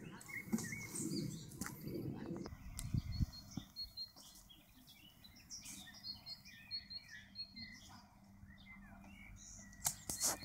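Small birds chirping in the background, with rustling of a nylon sleeping bag and clothing in the first couple of seconds and a few light clicks near the end.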